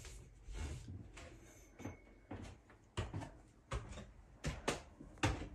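Footsteps climbing a short indoor staircase: a run of soft, uneven thumps and knocks, roughly one or two a second.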